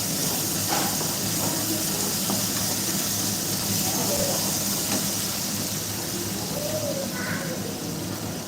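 Steady hiss over a low, even hum, with a few faint voice-like fragments.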